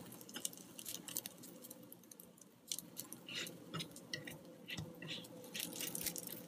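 Faint crackling of hot oil around kuzhi paniyaram in a paniyaram pan, with scattered light clicks and scrapes as a thin skewer turns the dumplings over.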